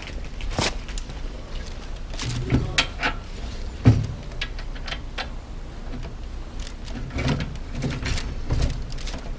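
Scattered metallic clicks and knocks of hands working at the rear wheel and derailleur of an electric cargo bike during rear-wheel removal, the sharpest knock about four seconds in, over a low steady rumble.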